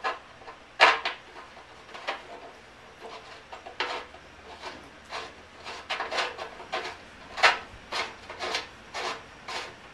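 Irregular light clicks and knocks, with some rubbing, from hands working a metal fuel-line fitting under a motorcycle fuel tank through a cloth towel. The loudest knocks come about a second in and about seven and a half seconds in.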